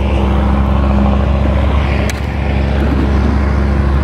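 Honda ADV150 scooter's single-cylinder engine idling steadily, with a sharp click about two seconds in.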